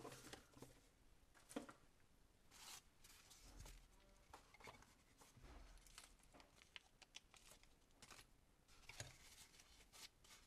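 Faint handling noises of foam packing and a small plastic parts bag: soft rustles with scattered light clicks and taps.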